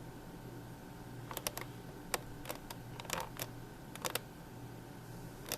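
Plastic buttons on a toy alarm clock radio clicking as they are pressed repeatedly while setting the time, in quick pairs and triplets starting about a second in.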